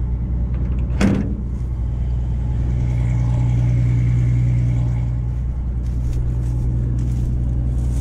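Diesel engine running steadily at idle, with a single sharp metallic clank about a second in as a hinged metal flap on the combine's straw chopper is swung shut.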